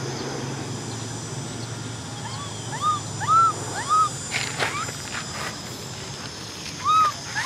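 Baby macaque crying: a series of short, high, arched cries, several in the middle and two more near the end.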